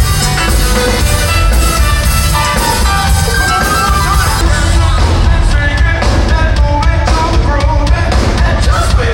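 Band music with a steady drum beat and bass under melodic lines.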